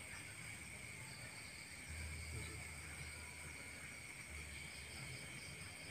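Faint, steady chorus of night insects with an unbroken high trill, over a low rumble that swells about two seconds in and fades again.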